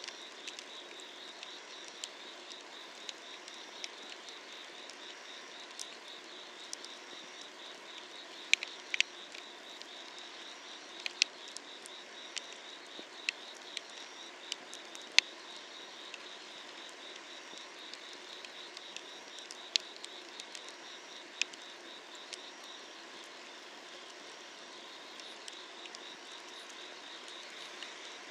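Firewood burning under an iron cauldron, crackling with irregular sharp pops, over the steady pulsing trill of summer-night insects.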